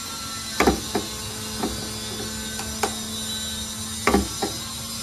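Plastic-and-metal clicks of a TVS Ntorq scooter's fuel-tank cap and its key lock being worked with a new key: a loud double click about half a second in, a few lighter clicks, and another loud double click around four seconds in. A steady low hum runs underneath.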